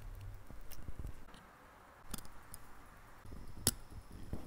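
Small, scattered clicks and taps of watchmaker's tools, hand levers and steel tweezers, against the hands and metal parts of a mechanical watch being taken apart, with one sharp click about three and a half seconds in.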